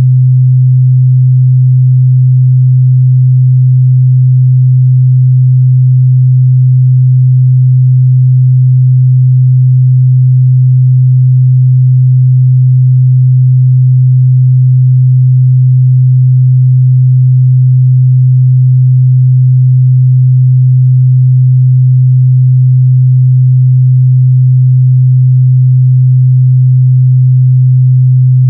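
A steady, loud 128 Hz sine-wave test tone, one constant low hum held without change.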